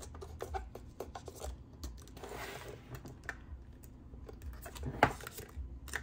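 Hands sorting through paper envelopes and supplies: light clicks and taps throughout, a rustle about two to three seconds in, and a sharper click about five seconds in.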